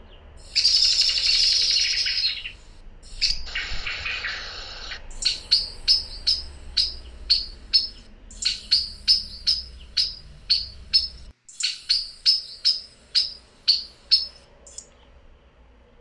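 Eurasian blackbird calling: two harsh, noisy bursts in the first five seconds, then runs of sharp, clipped call notes about two a second, broken by two short pauses.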